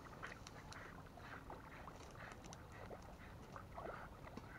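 Faint, irregular water splashing and sloshing: a dog wading through the shallows of a pond.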